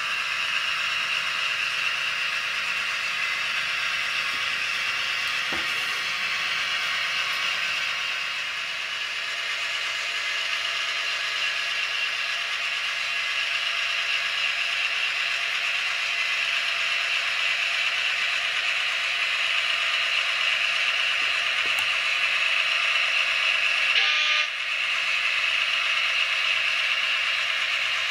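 Sound decoder of a Piko model DR class 118 diesel locomotive playing a steady diesel-engine running sound through the model's small speaker, thin with no deep bass, as the model runs along the track. A brief, louder sound comes about 24 seconds in.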